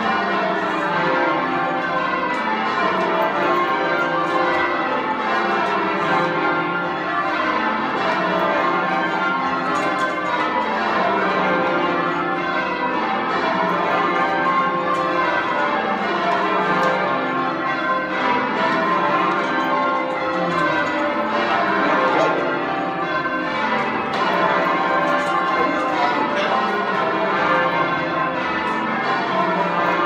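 A cathedral's ring of old-fashioned-sounding full-circle church bells being rung in rounds, heard from the ringing chamber below. The bells strike one after another down the scale, over and over, in a steady unbroken peal.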